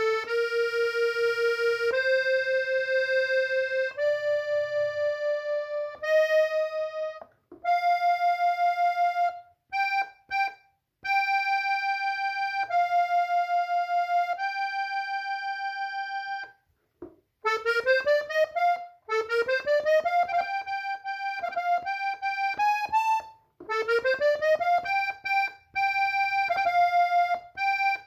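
Hohner diatonic button accordion in F playing a slow single-note melody on the treble buttons. Long held notes step upward one at a time, with brief breaks between phrases, then turn into quicker rising runs and ornamental turns in the second half.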